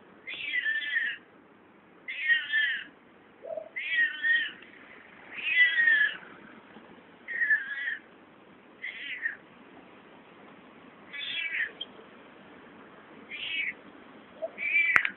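A cat calling over and over with strange, short meows, about nine in all, one every second or two, each with a wavering, warbling pitch.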